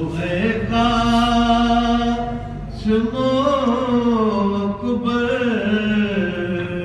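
A male voice chanting a Sindhi salam, a Shia mourning elegy, in long held notes that bend slowly up and down in pitch.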